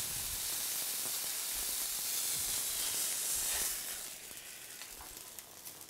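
Turbot sizzling as it fries in a hot pan, a steady high hiss that dies down sharply about two-thirds of the way through.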